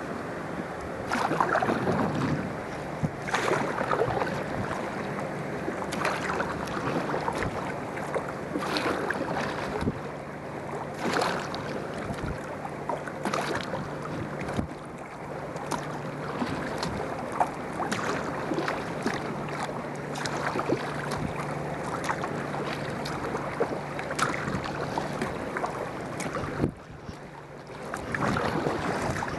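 Kayak paddle strokes splashing in the water about every two seconds, over wind buffeting the microphone. A faint low steady hum runs through the middle stretch.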